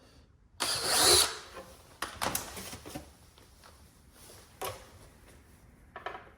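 Electric drill boring a 6 mm hole in one short burst of under a second, a little over half a second in, followed by scattered clicks and knocks of parts being handled.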